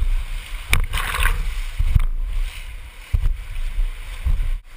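Raft on whitewater: rushing river water with a sharp splash about a second in, over irregular low rumbling on the microphone.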